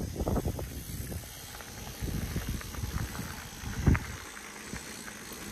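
Electric mountain bike rolling over a loose gravel dirt track: uneven crunching and rattling from the tyres and frame, with one sharp knock about four seconds in.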